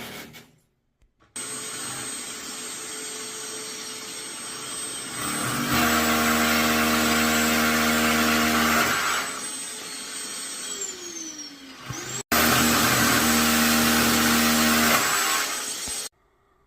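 Loud whirring machine noise with a thin high whine. A low buzzing hum comes in twice for a few seconds each, and near the middle the whine slides down in pitch.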